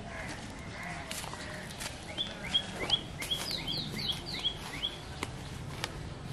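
A bird calling a quick run of short rising chirps, about three a second, starting about two seconds in and lasting nearly three seconds. Scattered footsteps on grass and ground litter.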